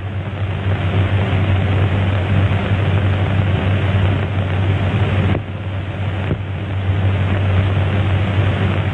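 Steady low mechanical drone under heavy hiss, dipping briefly about five and a half seconds in.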